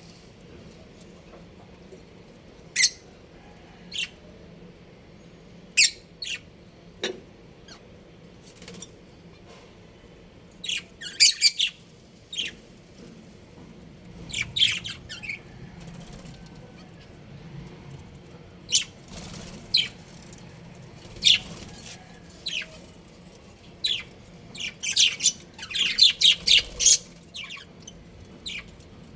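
A budgerigar colony giving short, scattered chirps and squawks, with busier bursts of calling now and then.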